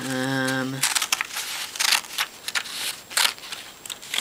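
Scissors cutting through a sheet of paper in a run of repeated snips, about two to three a second, after a brief held hum from a voice at the start.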